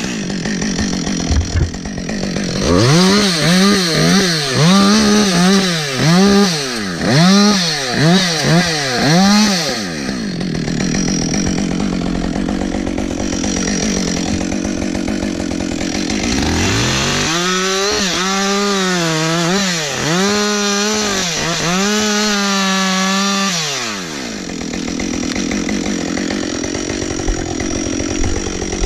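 Two-stroke chainsaw engine revved up and down in about seven quick bursts, then running at lower speed. About halfway through it climbs to high revs and holds there for some seven seconds with a wavering pitch, then drops back toward idle.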